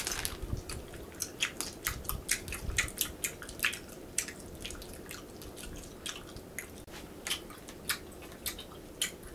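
Close-miked wet mouth sounds of someone chewing and sucking on a Haribo gummy bear: irregular sticky smacks and clicks, a few a second.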